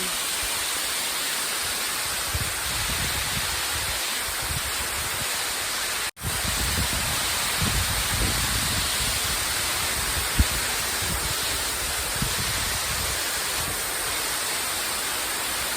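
Steady hiss of rain, with irregular low rumbles underneath; the sound drops out for an instant about six seconds in.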